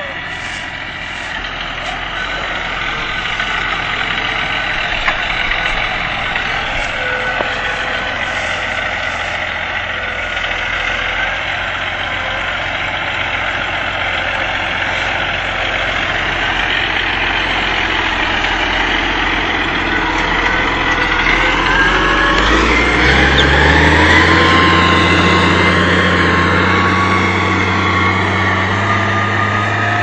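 Claas Arion 630 tractor's six-cylinder diesel engine running steadily while ploughing. About three-quarters of the way through, the engine note climbs and then holds at the higher pitch.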